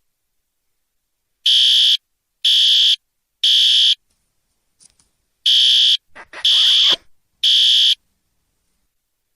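Fire alarm sounding: six high-pitched electronic beeps of about half a second each, starting about a second and a half in, in two groups of three with a longer pause between them, the three-beat evacuation pattern.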